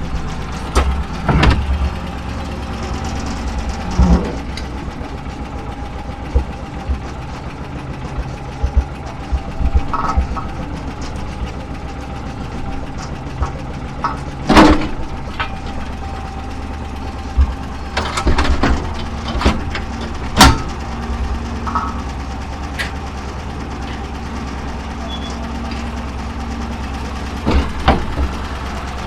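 Engine of orchard harvest machinery running steadily with a low hum. Scattered sharp knocks and clatters sound over it, the loudest about halfway through and two-thirds of the way in.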